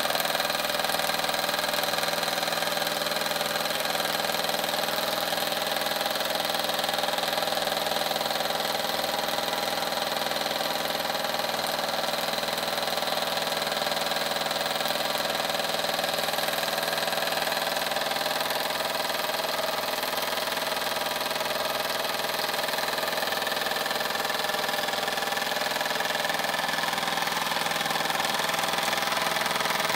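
Late-1960s Wilesco D24 live-steam model engine running light at a steady speed, belt-driving a small dynamo, with a continuous hiss of steam.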